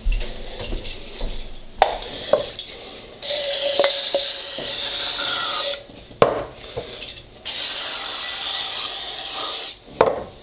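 Two long hissing bursts of aerosol cooking spray (a Pam can) sprayed into small glass mason jars to grease them, each lasting about two and a half seconds. Short knocks come as the glass jars are handled between the bursts.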